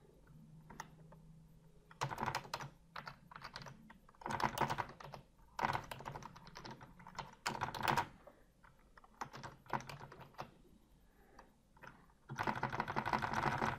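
Typing on a computer keyboard: clusters of key clicks separated by short pauses, ending in a fast unbroken run of key presses near the end.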